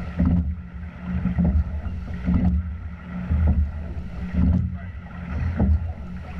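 Single rowing scull under way, rowed at about 28 strokes a minute: water rushing along the hull and oar blades, with a rhythmic surge and clicking knocks a little more than once a second from the blades and oarlocks at each stroke, over a low rumble of wind on the boat-mounted microphone.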